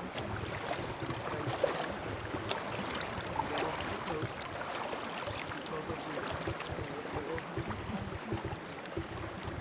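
Lake water lapping at the shore, a steady wash with scattered light clicks and splashes.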